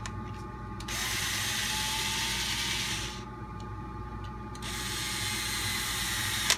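Cordless electric screwdriver running in two bursts of about two seconds each, turning small screws in a Traxxas TRX4 RC truck's chassis, with small clicks between the bursts.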